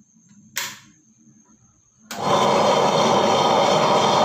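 A click about half a second in, then about two seconds in a Prestige table-top wet grinder starts up and runs steadily, its stone rollers turning in the stainless steel drum with a little water in it: a first-use rinse to wash out dust.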